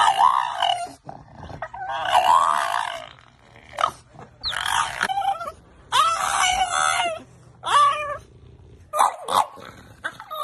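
French bulldog 'talking': a string of about eight drawn-out, whining yowls and grumbles with wavering pitch, separated by short pauses.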